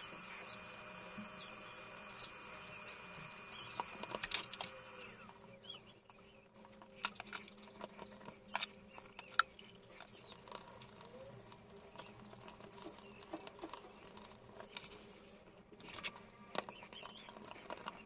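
Faint scattered clicks, taps and scratches of a circuit board being handled while a replacement electrolytic capacitor's leads are fitted into it.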